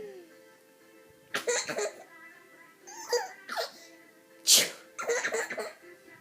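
A baby laughing in short bursts, with one sudden loud sneeze about four and a half seconds in, followed at once by more laughing. Faint music plays steadily underneath.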